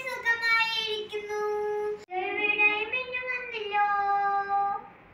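A young girl singing, holding long steady notes, with a short break about two seconds in; her singing stops near the end.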